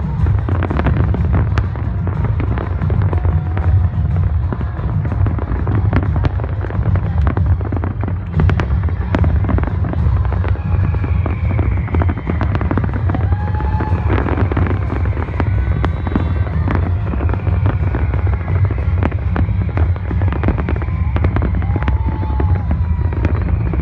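Fireworks display: a continuous barrage of bangs and crackles over a heavy, steady rumble.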